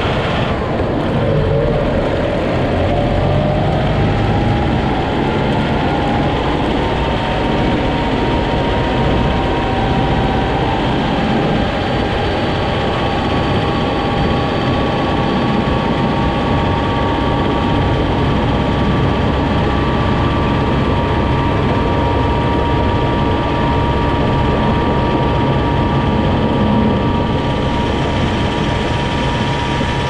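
Kubota M6060 tractor's diesel engine running steadily under load while pushing snow with a front blade. Its pitch rises over the first few seconds, then holds level.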